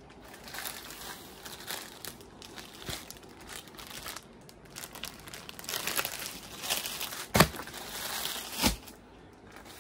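Plastic packaging crinkling and rustling as packed bed sheets are handled and shuffled, with two sharper knocks about a second apart near the end.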